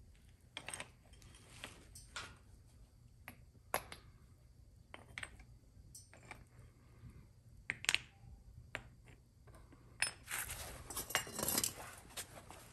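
Sharp metallic clinks and knocks as steel tongs handle small molds and knock freshly cast metal coins out onto brick, one strike at a time, with a longer rattling scrape near the end.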